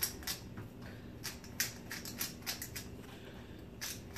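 Hand-held pepper mill grinding peppercorns: an irregular run of short, crisp crunching clicks.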